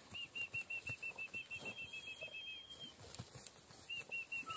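A bird calling: a fast run of short high whistled notes, about seven a second, with a held high note alongside. It breaks off about two and a half seconds in and starts again near the end.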